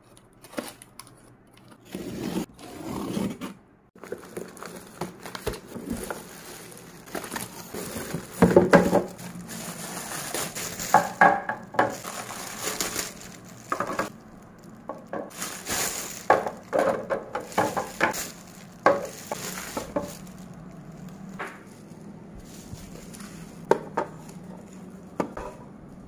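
Unpacking a parcel: packing tape on a cardboard box is slit open, then clear plastic storage bins are unwrapped and handled. The sound is irregular crinkling and rustling of plastic wrap and bubble wrap, with light knocks and clicks of hard plastic.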